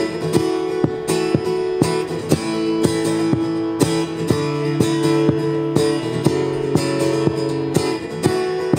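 Acoustic guitar strummed in a steady rhythm, about two to three strums a second, with no singing.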